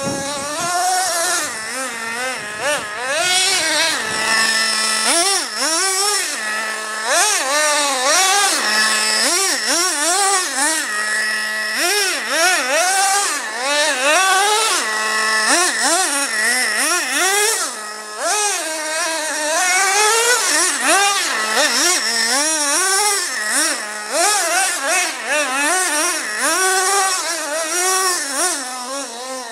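Traxxas Revo 2.5 nitro RC monster truck's small 2.5 cc two-stroke glow engine revving up and down again and again under throttle, dropping back briefly to a steady high idle between bursts.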